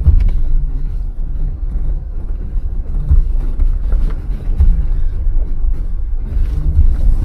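Low rumble of a Jeep crawling slowly over a rough off-road trail, with a few heavier thumps as it jolts over the ground.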